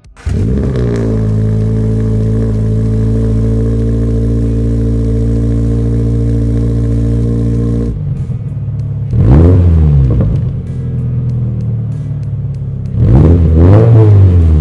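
A 2022 BRZ/GR86's 2.4-litre flat-four engine breathing through a Remark R1 Spec single-exit cat-back exhaust. It starts abruptly and holds a steady note for about eight seconds, then is revved twice, each rev rising and falling in pitch.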